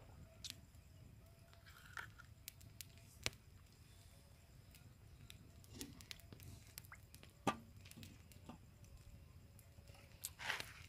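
Quiet night stillness broken by scattered faint clicks and small handling taps, with a sip from a coffee cup about six seconds in. A sharper click comes about seven and a half seconds in, and a short breathy rustle comes near the end.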